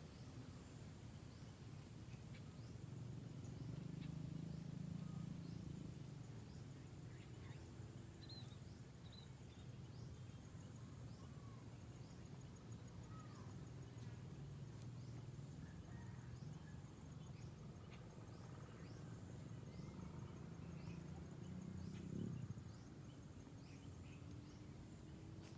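Faint outdoor ambience: a low steady rumble with scattered faint bird chirps and whistles.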